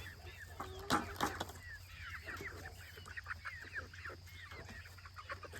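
A flock of chickens calling, with many short overlapping chirps and clucks. A couple of sharp knocks about a second in.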